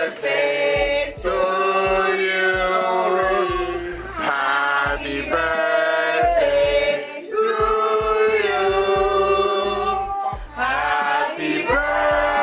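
A group of people singing together without instruments, in long held notes.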